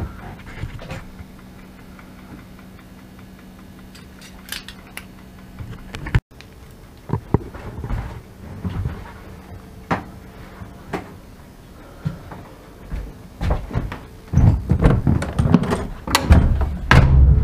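Low steady hum inside an ET22 electric locomotive's cab. Then comes a run of clicks, knocks and clunks as the camera is carried through the locomotive, turning into heavy thumps near the end as a cab door is handled.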